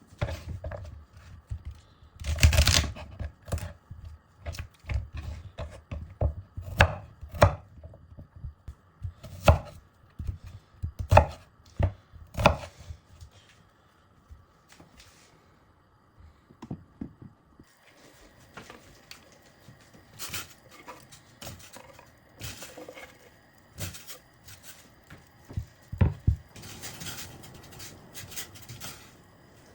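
Knife chopping on a cutting board in irregular strokes, busy through the first half, then sparser knocks over a faint steady background.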